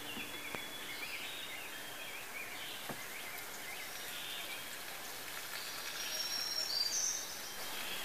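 Quiet outdoor ambience: a steady hiss with birds chirping and whistling in the background, and a few faint clicks.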